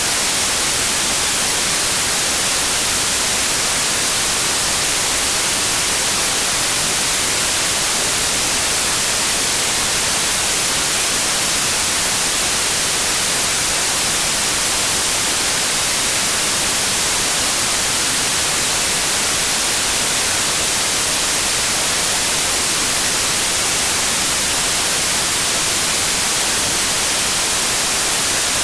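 Steady white noise: an even, unchanging hiss with most of its energy in the high frequencies.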